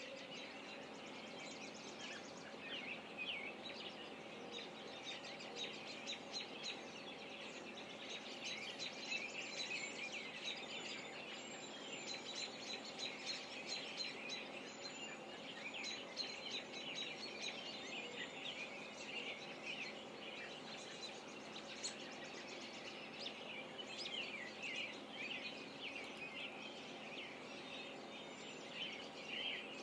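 Many birds chirping and singing at once, a dense, continuous run of quick high chirps, with a faint steady hum underneath.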